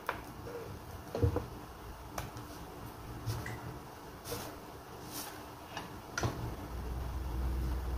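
Scattered light clicks and knocks of a hinged electric flatbread press being worked by hand, its lid opened and thin dough discs lifted off the metal plate, about one tap a second. A low steady rumble comes in near the end.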